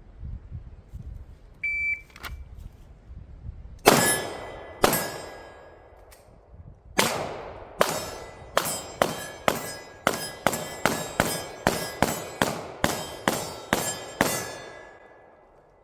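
An electronic shot-timer beep about two seconds in, then a timed string of about twenty pistol shots. Two come slowly, then the rest follow rapidly at roughly three a second, with a metallic ringing after them from hits on steel targets.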